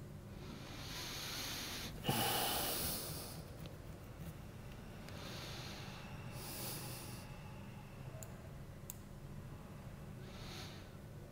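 A man's breathing close to the microphone: several noisy breaths in and out, the loudest starting sharply about two seconds in. A couple of faint clicks near the end.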